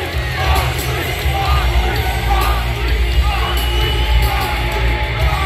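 Loud music with a heavy bass line, with crowd members yelling over it.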